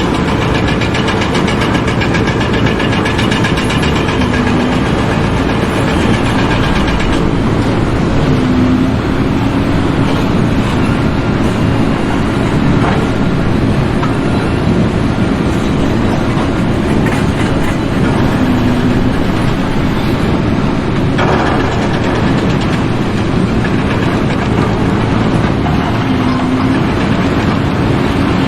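An engine running steadily and loudly, with the noise changing abruptly twice.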